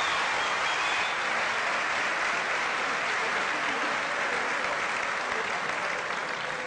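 Studio audience applauding, easing off slowly towards the end.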